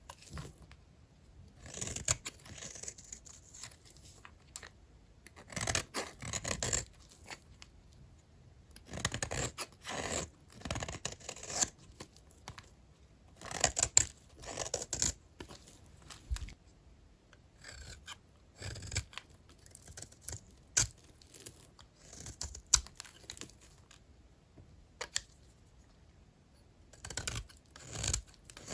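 Knife blade cutting through dry, hard bars of old hotel soap: short crisp scraping strokes with crackly clicks, a pause between each, as thin slices and flakes come away.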